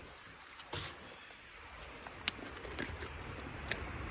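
A plastic water bottle being handled: a few light, separate clicks and crackles of thin plastic.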